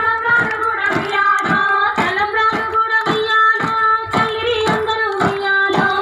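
A Bathukamma folk song sung with a group clapping hands in time, about two claps a second.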